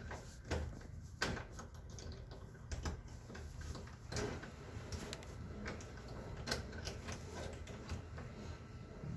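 Irregular small clicks and knocks as a locked bathroom door's privacy lock and door are worked at, trying to open it from outside.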